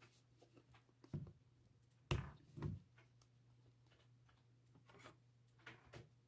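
Quiet handling sounds at a work desk: a soft knock about a second in, two louder sharp knocks around two seconds in, and a few faint clicks near the end, over a low steady hum.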